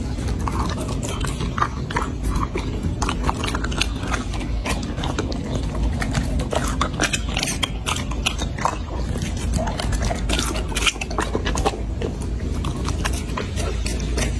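A dog chewing and biting chunks of raw meat, a steady run of quick crunching clicks.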